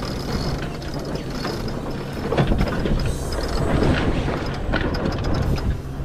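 A sailboat's sheet winch clicking as the jib sheet is hauled in just after coming about, with a steady low rush of wind and water underneath.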